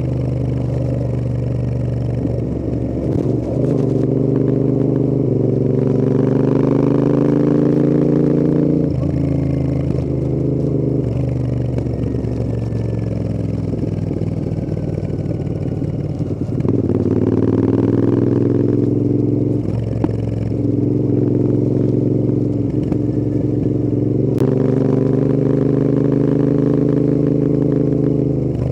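Royal Enfield Interceptor 650's 648 cc parallel-twin engine and exhaust on the road, pulling hard through the gears: the note rises in three long pulls, dropping back at each change up, with a steadier cruising stretch in between.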